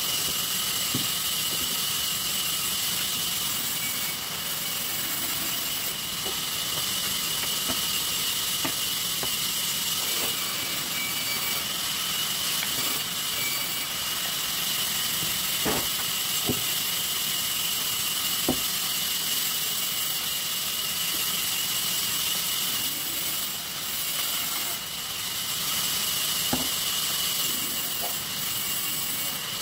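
Sawmill saw machine running with a steady high-pitched whine and hiss, with a few sharp knocks in the middle and near the end.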